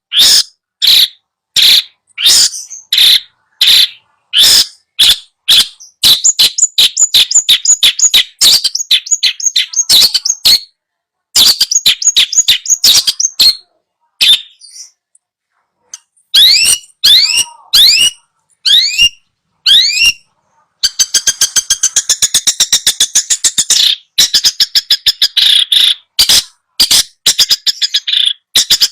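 Long-tailed shrike (cendet) song: loud, harsh chattering notes run together into fast rattling trills, with a few rising whistled notes in the middle. Phrases are broken by short, completely silent gaps.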